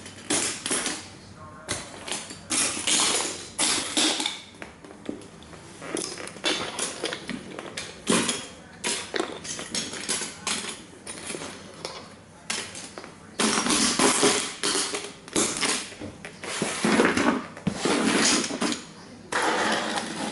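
Cowboy boot stomping on plastic model toy trains: irregular cracks, crunches and clatter of breaking plastic and scattering pieces, with the debris shuffled and clinking by hand partway through. The cracking and crunching grows louder and denser in the second half.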